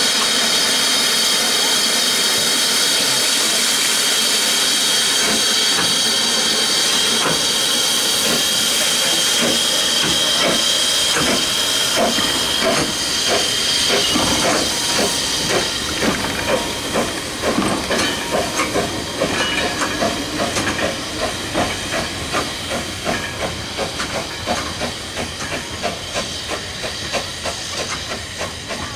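SECR P Class 0-6-0 tank engine blowing off steam from its open cylinder drain cocks with a loud steady hiss, then starting away with a goods train. Its exhaust beats begin about a third of the way in, quicken as it gathers speed, and fade as the train draws away.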